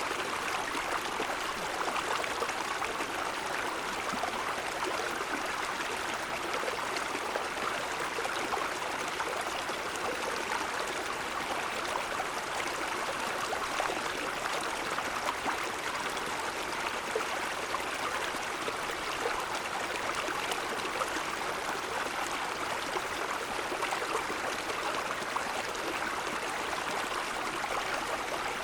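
Mountain stream flowing over snow-covered stones, a steady babbling and trickling of running water.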